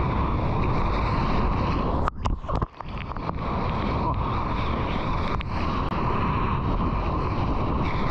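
Wind buffeting and seawater rushing over an action camera's microphone while a surfer paddles into and rides an ocean wave, a steady, loud noise. About two seconds in the sound briefly cuts out several times, then comes back.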